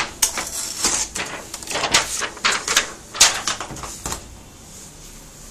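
A clear plastic sheet crinkling and crackling as it is handled and lifted off a laptop's LCD screen, in quick irregular crackles that die down about four seconds in.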